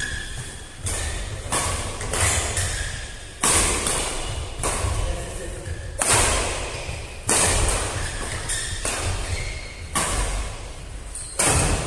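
Badminton rally with rackets striking a plastic shuttlecock about ten times at roughly one-second intervals. Each hit is sharp and echoes in a large hall, and one of the loudest hits, about six seconds in, is a jump smash.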